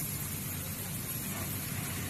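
Steady low background noise of a workshop hall, with no distinct knocks or clicks.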